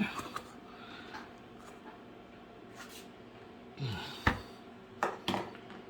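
Quiet handling noises: a few separate clicks and knocks, the sharpest a little past four seconds in, with no drill running.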